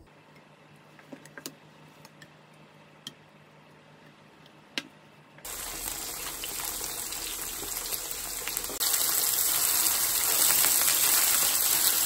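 Thick slabs of tofu sizzling as they fry in plenty of hot cooking oil in a nonstick frying pan. The sizzle starts about five seconds in and gets louder about nine seconds in. Before it there is only a low steady hum and a few faint ticks.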